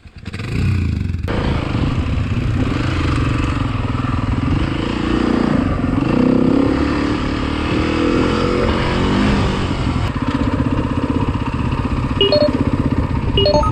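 Dirt bike engine pulling away from a stop and running under load along a sandy trail, its revs rising and falling through the gears.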